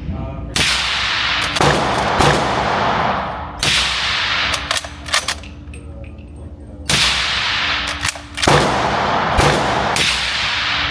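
Suppressed rifle fired shot after shot at an uneven pace, several shots in all. Each crack is followed by a long fading echo from the indoor range.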